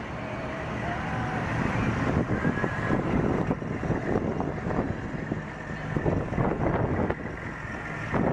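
Wind buffeting the microphone over a rumble of vehicle engine noise, with irregular knocks from the camera being handled.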